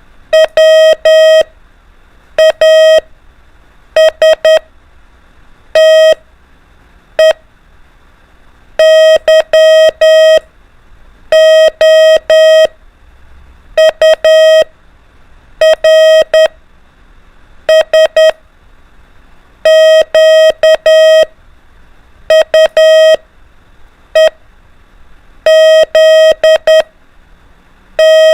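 Morse code (CW) practice tone: a single steady beep keyed in short dots and long dashes, one letter of the alphabet sent about every one and a half to two seconds with silent gaps between.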